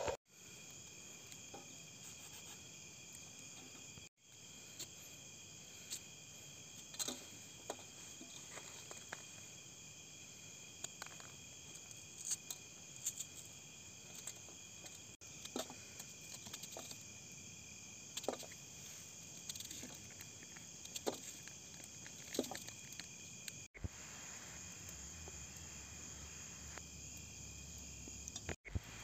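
Faint steady chorus of night insects such as crickets, several high tones held together, with scattered soft clicks and taps; the sound drops out briefly a few times.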